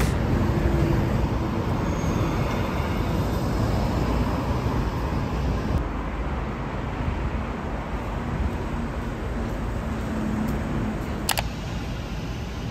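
City street ambience: steady traffic noise, with a single sharp click near the end.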